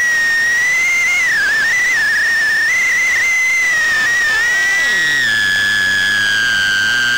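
Mobula 6 HD tiny whoop drone's motors and propellers whining at a high pitch, the pitch wavering up and down with throttle. About five seconds in the whine drops slightly and steadies, and a faint low hum joins beneath it.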